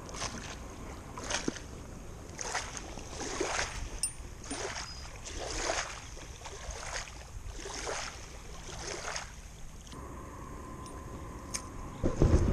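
Small waves lapping at a lake's muddy bank, a soft splash about once a second. Near the end, louder bumps and rustling close to the microphone.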